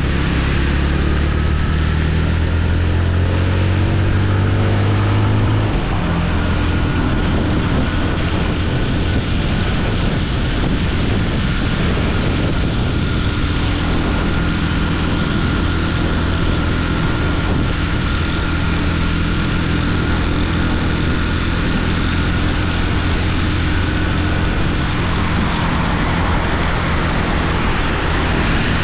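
Motorcycle engine running on the move, with steady wind and road noise. The engine note shifts in pitch over the first few seconds, changes about six seconds in, and then holds steady.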